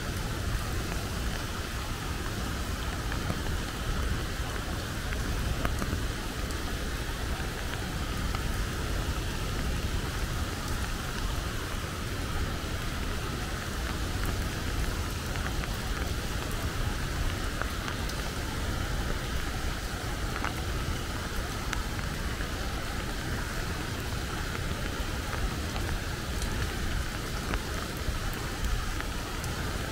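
Steady rain falling on dense leaves and stone, a continuous hiss with scattered individual drops ticking.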